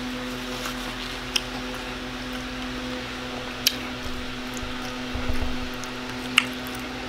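Close-up eating sounds: chewing, with a few sharp clicks of a fork against a plate as the fork goes into the spaghetti near the end. A steady hum runs underneath.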